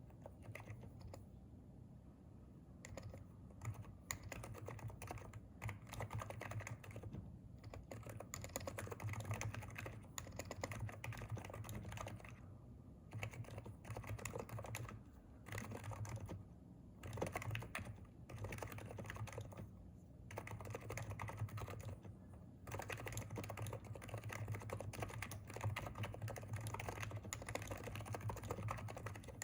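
Typing on a Hansung electrostatic capacitive keyboard: fast, continuous keystrokes in runs, broken by a few short pauses, lighter for the first couple of seconds.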